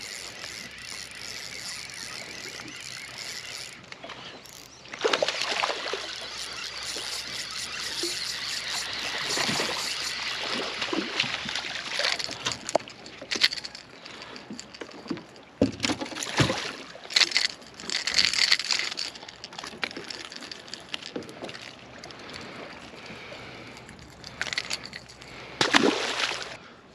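Lake water lapping and sloshing against a fishing boat's hull, with scattered short knocks.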